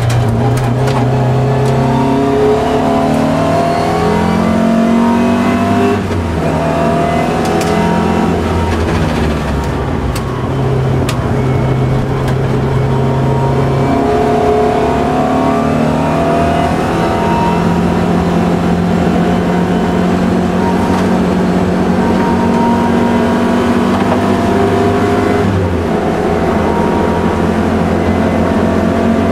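Opel Kadett C race car's four-cylinder engine heard from inside the cabin, driven hard at full load. Its pitch climbs and then drops sharply several times as it changes gear and lifts for corners.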